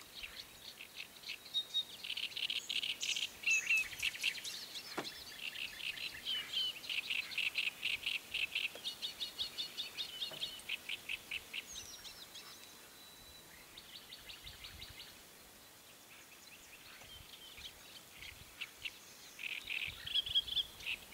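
Small songbirds singing: a fast, rhythmic run of high chirps and trills that fades out about halfway through, leaving only a few faint notes, and picks up again near the end.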